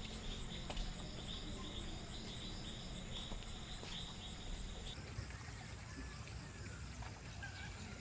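Insects chirping outdoors at night, a faint, steady, rapidly pulsing chirr that stops abruptly about five seconds in, leaving only faint low background noise.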